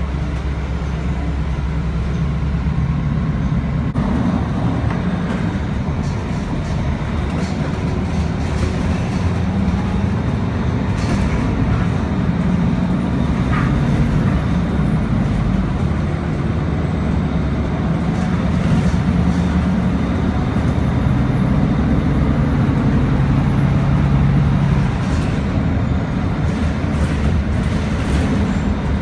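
Interior of a city transit bus in motion: the engine and road noise run steadily, with the engine pitch shifting now and then.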